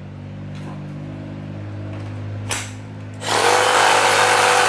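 Makita cordless reciprocating saw switched on about three seconds in and run with no blade load, a loud steady whir; a click comes just before it, over a low steady hum.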